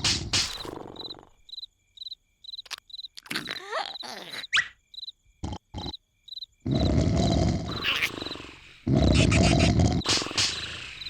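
Cartoon snoring: loud, rough snores, one ending about a second in and two more of nearly two seconds each in the second half. In the quiet between them a cricket chirps in a steady rhythm, and a few short squeaky glides in pitch go up and down.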